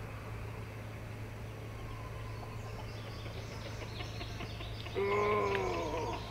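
A steady low hum with faint high chirps, then about five seconds in a single drawn-out animal call, about a second long and falling slightly in pitch.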